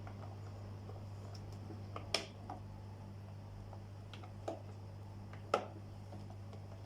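Scattered light clicks and knocks of stand-fan parts being handled and fitted back together, four or five in all, over a steady low hum.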